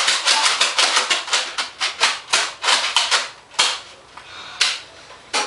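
Nerf blaster firing foam darts in quick succession, sharp clacks about four a second, slowing to two last shots near the end.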